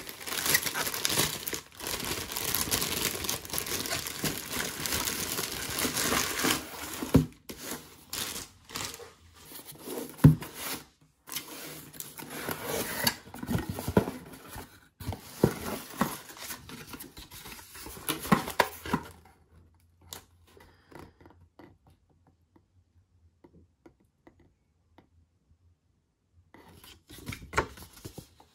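Food packaging being torn open and crinkled by hand. Dense, continuous rustling for about the first seven seconds gives way to intermittent tearing and crinkling with a couple of sharp knocks, then it goes nearly quiet apart from a short rustle near the end.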